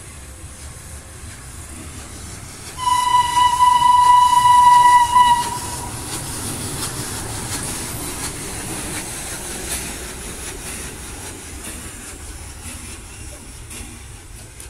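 Steam whistle of the FS class 740 steam locomotive 740.423, one long single-pitched blast of about two and a half seconds starting about three seconds in. Afterwards a steady hiss of steam and running noise as the locomotive moves along the track.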